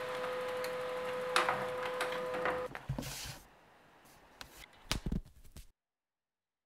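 HP desktop laser printer running: a steady motor whine with a few clicks, stopping about two and a half seconds in. A short rustle and a few sharp knocks follow, then the sound cuts to silence.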